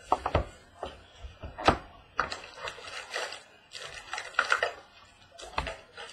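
A cardboard trading-card box and its packs being opened and handled on a wooden table: several sharp knocks, the loudest a little under two seconds in, with rustling scrapes of cardboard and packs between them.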